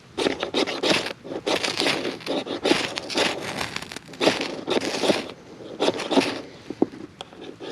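Ferro rod scraped again and again with a striker: a run of harsh, irregular scrapes, a few a second, while trying to light tinder that is wet.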